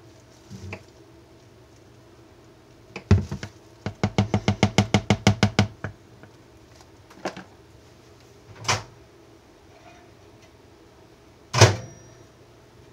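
Spatula knocking against a plastic mixing bowl of thick hot-process soap batter: a couple of knocks, then a quick run of sharp taps, about eight a second for nearly two seconds, then a few single knocks, the loudest near the end.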